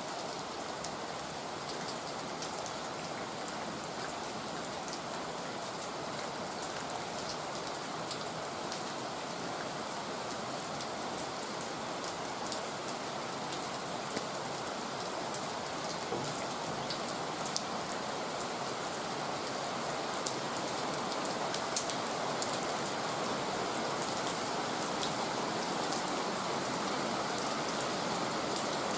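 Heavy rain falling steadily: a dense, even hiss with many individual drops ticking sharply against a surface. It grows slightly louder in the second half.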